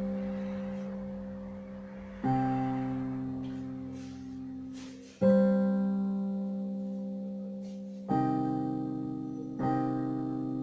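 Solo piano improvising slowly in sparse chords, each struck and left to ring out and fade. Four chords come a few seconds apart, the last two closer together.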